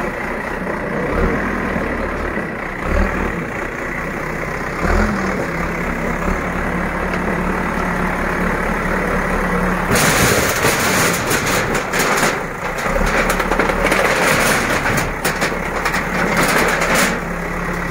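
Backhoe loader's diesel engine running steadily, then from about ten seconds in a long stretch of loud clattering and crashing of corrugated metal sheets as the loader's bucket pushes a tin wall over, with the engine working under load.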